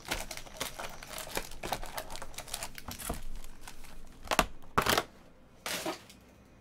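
Foil trading-card pack wrappers crinkling and rustling as packs are pulled out of a cardboard box and stacked, with a couple of louder rustles between four and five seconds in.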